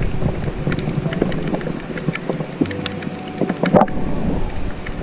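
Underwater sound picked up by an action camera in its housing while diving: a steady low rumble with many scattered clicks and crackles.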